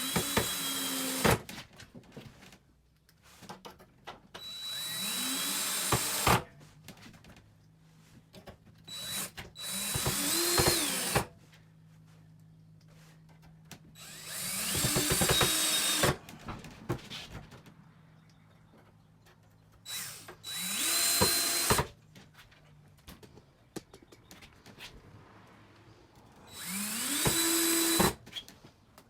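Power drill driving screws through aluminum trim into plywood, in about six short runs a few seconds apart; each run spins up in pitch and stops abruptly.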